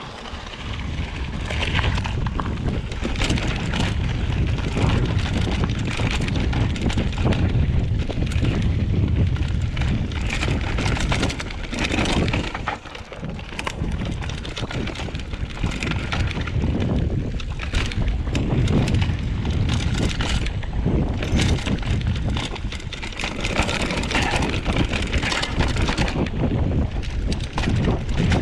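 Mountain bike riding down a dirt trail: wind rushing over the microphone, with tyre noise and frequent rattles and knocks from the bike over rough ground, easing briefly about halfway through.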